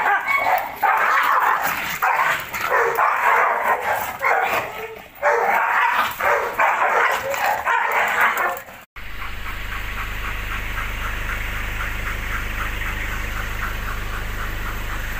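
A Belgian Malinois and a small shaggy dog play-fighting, with a rapid run of yips and barks in quick bursts for about nine seconds. After a sudden cut there is a steady low rumble with a fast, even pulse of about four a second, the sound of a Malinois panting.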